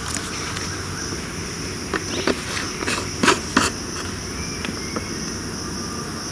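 Steady high-pitched insect chorus, with a cluster of sharp crackles, like dry leaves or twigs being disturbed, between about two and four seconds in.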